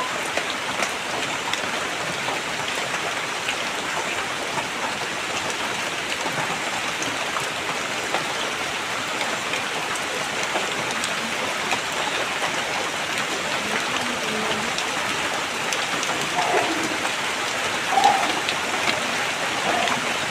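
Steady rain falling, a dense even hiss with the fine patter of drops, and a brief louder blip near the end.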